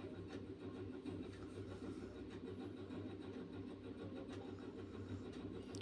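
Faint scraping of a spatula stirring thick turmeric paste as it roasts in oil in a heavy kadhai, with a few soft clicks over a steady low hum.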